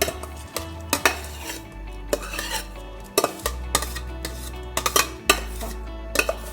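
A metal spoon clinking and scraping against a cooking pot, a dozen or so irregular knocks, as rice is added to boiling water and stirred.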